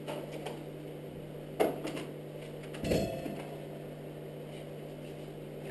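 Steady low electrical hum with a few knocks and clunks of gear being handled during setup. The loudest are a sharp knock about a second and a half in and a dull thump about three seconds in.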